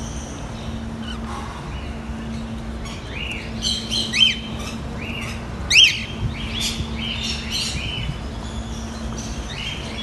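White cockatiels chirping in a cage: a string of short arched chirps begins about three seconds in, with two louder, sharp calls near the middle. A steady low hum runs underneath.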